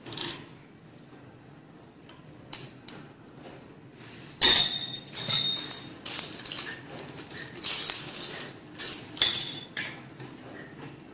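Small metal parts clicking and clinking against each other as a steel connector is fitted onto the handpiece of a flexible shaft. The sharp clicks come irregularly, the loudest about four and a half seconds in and another near nine seconds.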